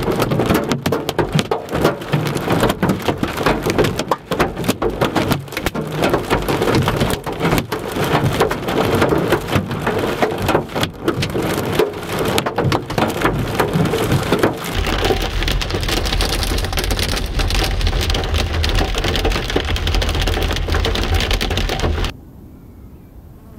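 Heavy rain beating on a car's roof and windscreen: a dense, loud patter of drops. About fifteen seconds in, a steady low rumble joins it. About seven seconds later everything cuts off abruptly to quiet.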